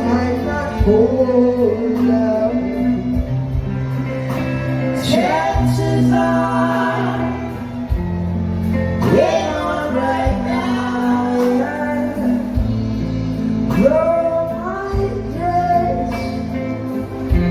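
Live band music with a steady bass line and a voice singing long notes that slide up into each phrase.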